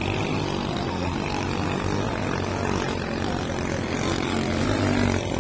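Engines of racing bangkas (motorised outrigger boats) running with a steady drone that grows slightly louder near the end.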